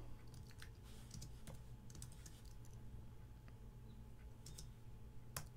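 Computer keyboard keystrokes: a few faint, scattered taps, with a short cluster of clicks near the end.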